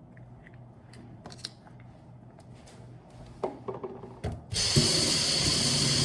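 A few light clicks and knocks, then about four and a half seconds in a small motorized appliance switches on and runs with a loud, steady whir.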